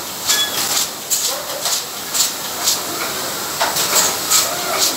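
Automatic bottle capping line running, with short bursts of air hiss repeating irregularly, two or three a second, over a steady clatter of machinery.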